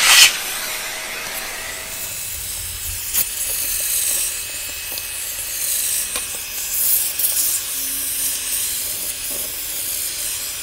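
Workshop vacuum cleaner running, its hose nozzle sucking leaves and debris off the top of an intercooler's fins: a steady airy hiss that surges briefly as it starts, with a few sharp clicks.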